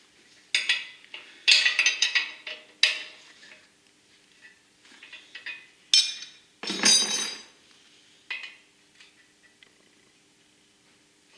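Short, irregular bursts of metal clinking and scraping from hand work on steel, in several clusters through the first half, with one longer, fuller scrape about seven seconds in.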